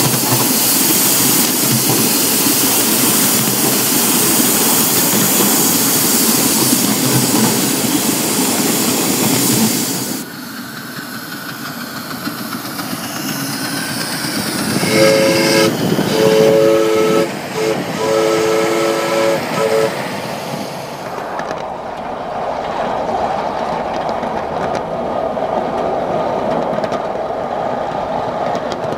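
Live-steam miniature Pacific steam locomotive running close by, a loud steady rush of steam and running gear. About fifteen seconds in comes a string of short steam-whistle blasts. Near the end the wheels roll steadily along the small-gauge track.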